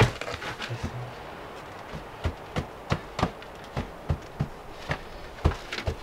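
A quick series of sharp taps and knocks, about two or three a second, starting about two seconds in.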